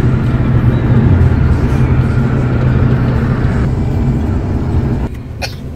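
Road noise heard from inside a moving vehicle at speed: a steady low rumble of engine and tyres with a rush of wind over it. It drops off suddenly near the end.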